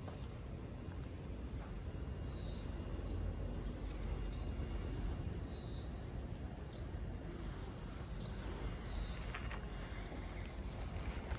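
Outdoor ambience: short high chirps repeating roughly once a second over a steady low rumble.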